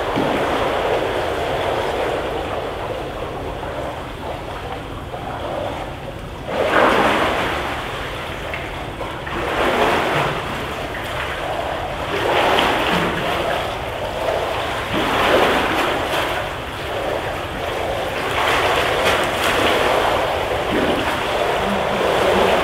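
Water splashing in an indoor swimming pool, echoing off the hall: a steady wash with louder surges every two to three seconds from about six seconds in.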